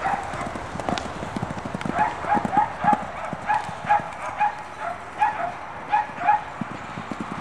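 Horses cantering loose on sand, hooves thudding irregularly in a soft, dull beat. Over them, from about two seconds in, a quick run of short high-pitched calls repeats a few times a second and is the loudest thing heard.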